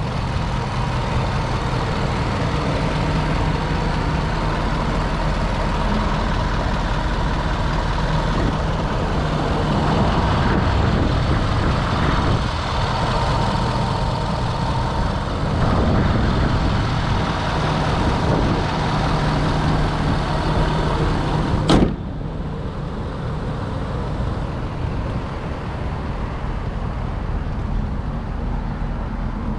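Ford 6.7L Power Stroke V8 turbo-diesel idling steadily, with a faint steady whine over it. About 22 seconds in there is a single sharp slam, the hood being shut, and after it the engine sounds quieter and more muffled.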